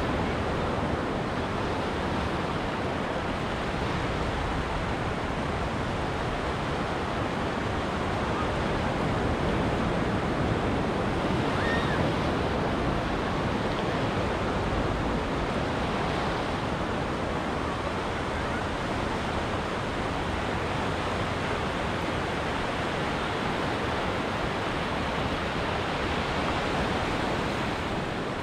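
Ocean surf washing onto a beach: a steady rush of breaking waves with gentle swells in loudness.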